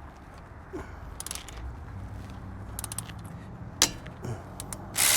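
Scattered metallic clicks and clinks of hand tools on a brake caliper bolt, with one sharp click a little before the end. Then, near the end, a power tool starts running loudly.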